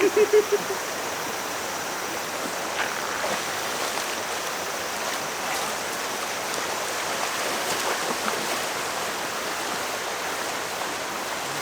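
Mountain valley stream, water rushing steadily over rocks. A brief voice is heard in the first second.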